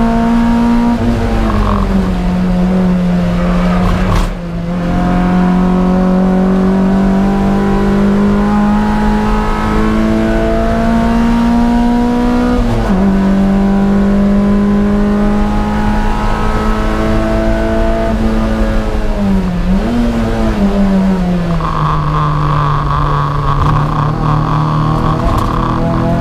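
Toyota MR2 race car's engine heard from the onboard camera, running hard at full throttle. Its note climbs steadily and drops sharply at upshifts about two and thirteen seconds in. About two-thirds of the way through the note wavers and falls as the driver comes off the power, and a steady higher-pitched hiss joins it for the last few seconds.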